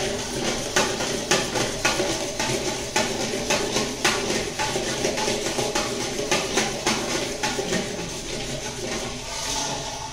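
Long-handled metal ladle scraping and stirring around an iron kadai of boiling syrup for peanut chikki: repeated irregular scraping strokes over a steady hiss from the steaming pan.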